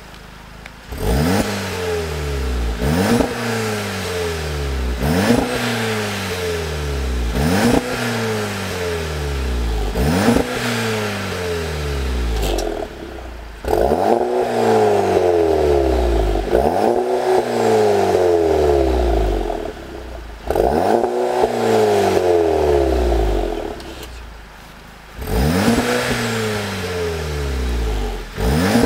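Turbocharged 2.0 TSI four-cylinder of a Volkswagen Golf GTI Mk7, fitted with a Baq Exhaust resonated turbo-back active exhaust with flap valves, revved while standing still. About five quick throttle blips come roughly every two seconds, then four longer revs held a second or two each, pitch jumping up and falling back each time. The exhaust valves are open, then closed near the end.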